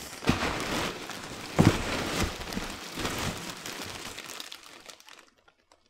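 Hands rummaging through a cardboard box of polystyrene packing peanuts, bubble wrap and plastic product bags: a continuous crinkling rustle with a couple of knocks, the louder one about a second and a half in, fading out near the end.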